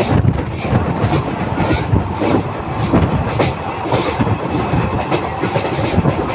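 Passenger train running on a railway bridge, heard from the coach: a steady rumble of wheels on rail with frequent short clacks.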